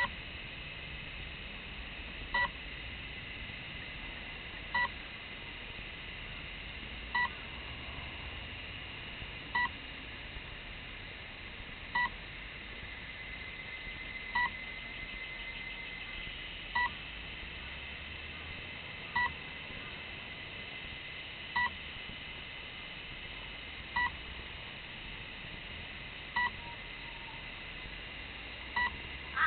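Short electronic beep repeating evenly about every two and a half seconds from the crashed RC wing's warning beeper, over a steady high hiss.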